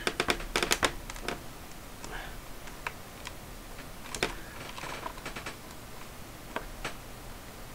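Small sharp clicks and taps of a screwdriver working the screws of a plastic calculator case, with hands handling the case: a quick run of clicks in the first second or so, then scattered single clicks.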